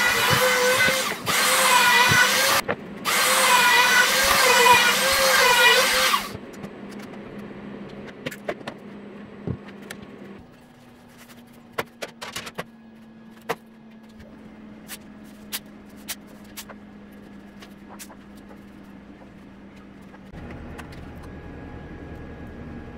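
CNC router spindle cutting plywood: a loud whine with a wavering pitch that stops abruptly about six seconds in. After that comes only a low steady hum with scattered light clicks.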